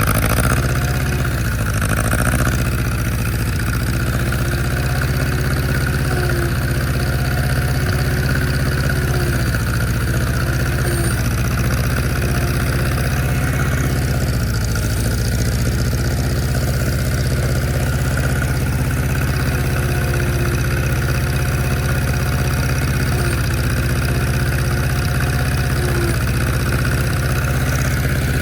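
Old tractor engine running steadily and loud, a continuous low drone with no change in speed.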